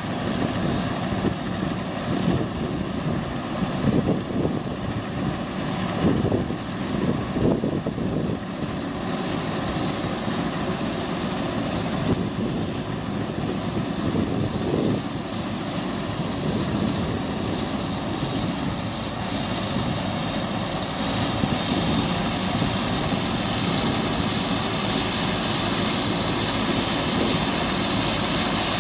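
Lely combine harvester running steadily, a continuous drone of engine and machinery. It grows slightly louder and hissier in the second half.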